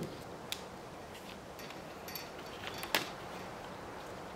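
Faint ticks and clicks of an X-Acto knife trimming window tint film against a straight-edge guide, with the sharpest click about three seconds in.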